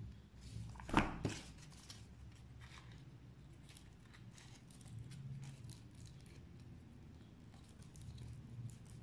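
A hot glue gun set down on a board with a single sharp knock about a second in, then faint rustling and crinkling of small glitter paper pieces being pressed and folded by hand.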